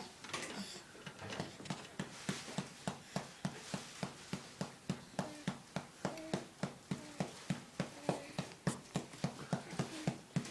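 A hand patting a baby's back to bring up a burp: quick, even pats, about three a second, settling into a steady rhythm after the first second or two.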